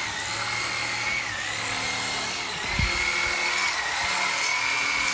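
Electric power tool running steadily with a high motor whine that dips briefly under load a couple of times, over a hiss. A single low thump near the middle.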